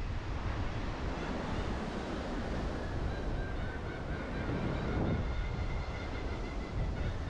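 Wind rushing over the microphone of a helmet or bike-mounted GoPro as a mountain bike rolls along paved road, with tyre noise under it. A faint high whine comes in about three seconds in.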